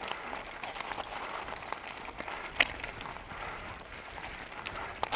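Unicycle tyre rolling over a loose, stony downhill track: a steady rough noise with scattered clicks of stones and one sharper knock about halfway through.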